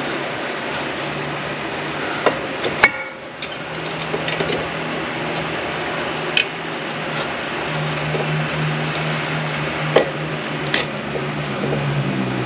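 Brake pads and their metal clips clicking against an Infiniti G37's front caliper bracket as they are pushed into place by hand: about five sharp metallic clicks over a steady hum.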